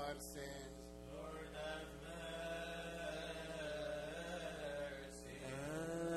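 Coptic Orthodox liturgical chant: a man's voice sings a long, slowly wavering melismatic line, held without pauses.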